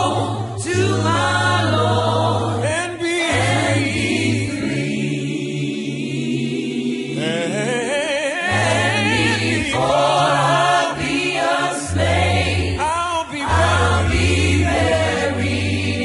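Background music: a choir singing a gospel spiritual, with long held low notes beneath the melody.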